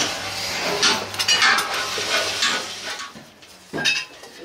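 Scraping and clinking of hand tools and sand as mould sand is packed and levelled in a sand-casting flask, with a steady low hum that stops about three seconds in and one louder knock near the end.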